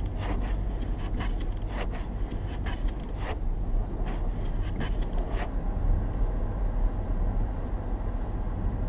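Car driving at about 50 km/h on a snow-covered road, heard from inside the cabin: a steady low rumble of engine and tyres. Irregular short clicks and ticks come through the first five seconds or so, then stop.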